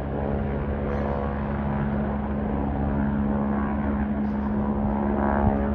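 Aircraft engines running with a steady drone and a low hum, growing slightly louder toward the end.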